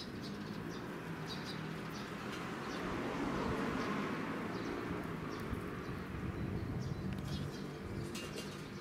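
Birds chirping in short scattered calls over steady outdoor ambience, with a broad rushing noise that swells and fades about three to four seconds in.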